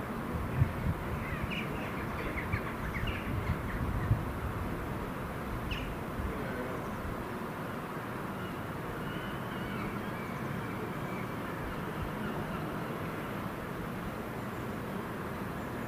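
Birds calling in short chirps and caws, mostly in the first few seconds, over a steady outdoor background hiss and low rumble.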